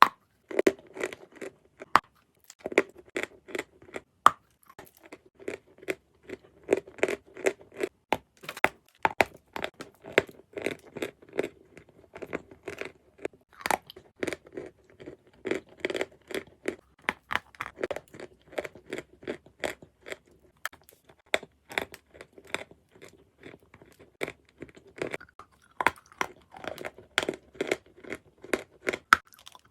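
Close-miked crunching and chewing of a piece of edible chalk of the 'Halva' variety: a steady run of short, crisp crunches, several a second, with a few sharper bites standing out.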